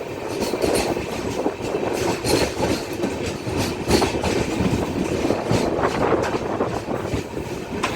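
Electric-hauled passenger train running at speed: a steady rumble of wheels on the rails with repeated clicks as the wheels cross rail joints.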